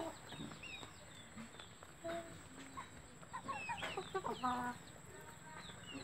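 Aseel chickens clucking softly, with scattered short high chirps throughout and a brief low cluck about two seconds in and again near four and a half seconds.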